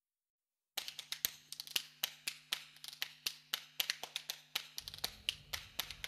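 Clicks and crackle of an old recording's surface noise over a low steady hum. It starts out of dead silence about a second in, with sharp clicks about two a second and lighter crackle between them, and a low rumble joins a little past the middle.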